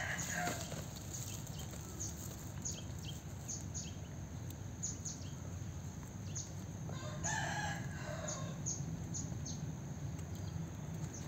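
A rooster crowing twice, once right at the start and again about seven seconds in, with short high chirps between the crows.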